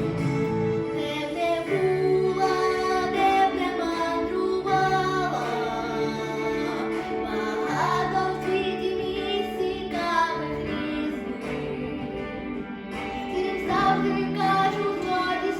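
A female voice singing a melody with sliding notes over instrumental backing music.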